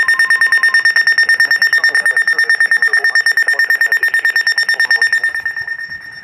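A weather radio receiver's alert alarm: a loud, high-pitched electronic beep repeating rapidly, about eight times a second, which signals an incoming warning. It drops in level near the end.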